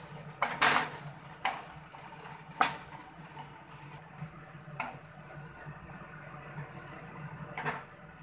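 Wooden spatula scraping and knocking against a metal kadai while stirring a thick mass of cooked red amaranth greens. There are about five sharp scrapes at uneven intervals over a steady low hum.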